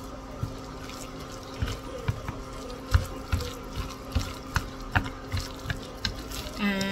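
Wooden chopsticks stirring wet grated potato batter in a bowl: irregular wet clicks and taps against the bowl, the loudest about three seconds in, over a steady low hum.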